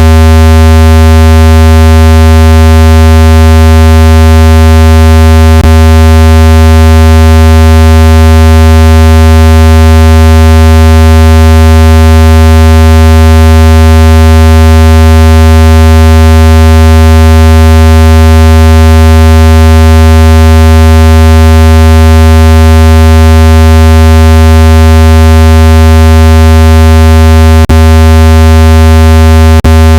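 Loud, steady, low buzzing electronic tone, a speaker water-eject sound meant to vibrate a phone speaker's membrane and push trapped water out. It has a few brief clicks near the end.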